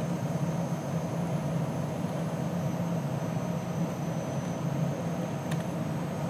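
Steady hum of a running DEC PDP-11/70 minicomputer and its disk drive, idling with no test yet under way. A single faint click comes about five and a half seconds in.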